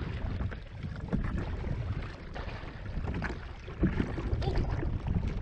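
Kayak paddle strokes splashing in the sea, with wind rumbling on the microphone; one louder splash comes about four seconds in.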